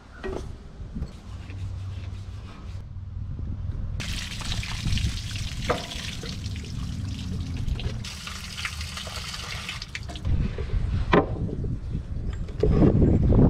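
Water streaming out from under a steam traction engine and splashing onto gravel, starting suddenly a few seconds in and running for about six seconds. Handling knocks follow, with a louder low rumble near the end.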